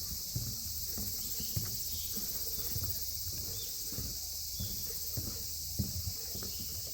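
Footsteps walking steadily along a forest trail, a soft thud about every half second to second. Under them runs a steady high-pitched chorus of summer insects.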